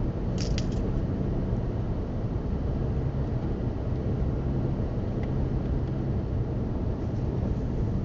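Steady car cabin noise: a low engine and road rumble with a faint steady hum, and a few small clicks about half a second in.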